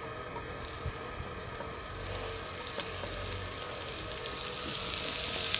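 Hot oil sizzling in a pan as chopped onion and bell peppers are tipped in beside frying potato patties. The sizzle starts about half a second in and slowly builds.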